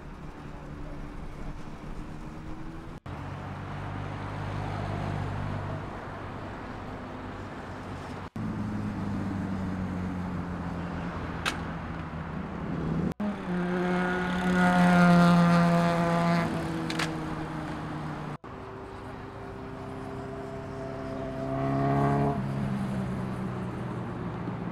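Sport motorcycle engines running and revving in a run of short clips that change abruptly every few seconds. The loudest comes in the middle, a bike passing with its engine note sliding down in pitch.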